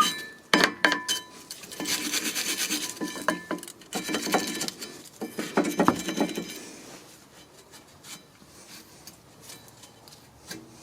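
Rear brake parts being wiped and scrubbed clean: rubbing and scraping on metal with light metallic clinks, easing off about two-thirds of the way through.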